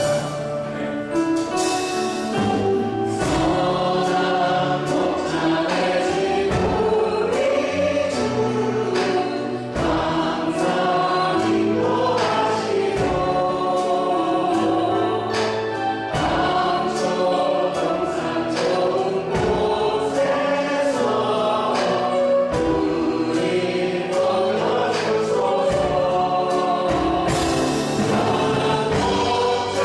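A church praise team singing a worship song together with a live band, with a steady beat.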